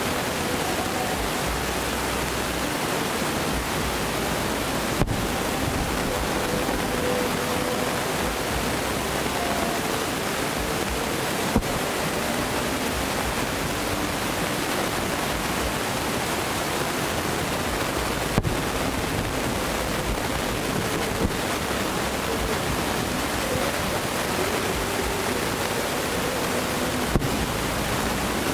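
Distant aerial firework shells bursting as five short, sharp bangs spread a few seconds apart, over a steady rushing noise.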